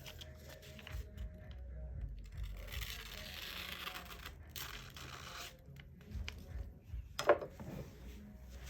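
Kitchen knife blade scraping in two long strokes, then a single sharp knock with a brief ringing tone a little after seven seconds.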